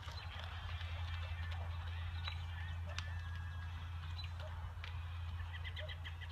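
Birds chirping over a steady low rumble, with a few faint scattered clicks. A quick series of short chirps comes near the end.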